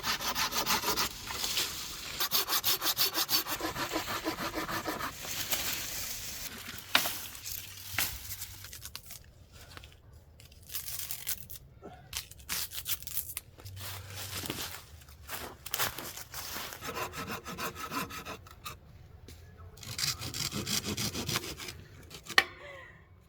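Fast, rhythmic rasping strokes, like a saw working through wood, in bursts of a few seconds with short pauses and a few sharp clicks between them.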